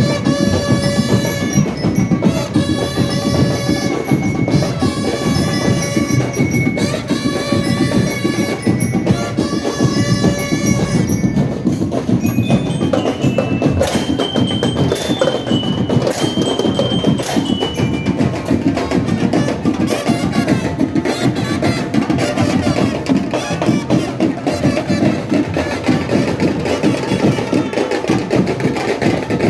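Marching band playing, with drums throughout. For the first ten seconds or so a short melodic phrase repeats about every two seconds. Then come a few high notes stepping upward, and after that mostly drums.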